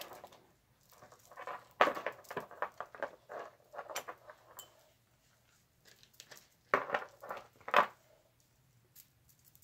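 Clear plastic bags rustling and crinkling under hands that are untangling cords, in irregular bursts with small clicks, a quiet pause in the middle.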